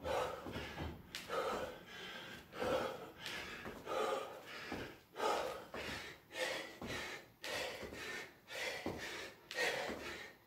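A man breathing hard in short, forceful puffs, about one or two a second, in rhythm with repeated lunges: out of breath from the exercise.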